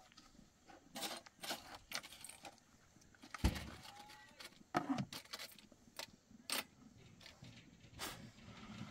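Irregular light clicks and knocks, with a heavier thump about a third of the way in.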